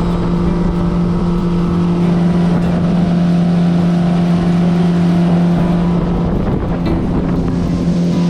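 Outboard jet motor driving a river boat under way, running at a steady, even pitch.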